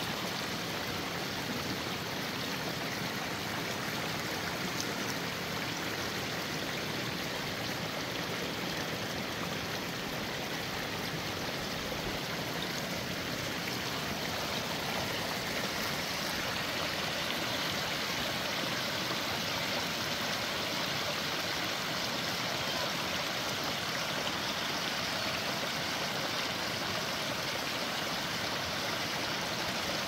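A small brook running over little cascades of rocks and branches: a steady, even splashing of water.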